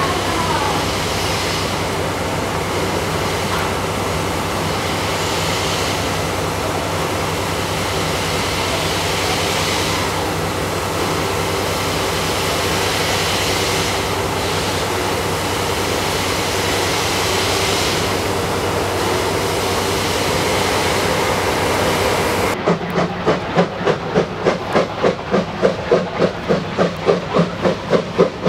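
German class 52 two-cylinder 2-10-0 steam locomotive 52 1360-8 moving slowly with a steady hiss of escaping steam. About 22 seconds in the sound switches to the locomotive's sharp exhaust chuffs, a regular beat of about two to three a second, as it works hard getting a train under way.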